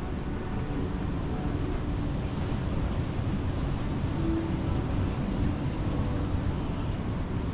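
Steady low rumble with a faint hiss above it, with no distinct events.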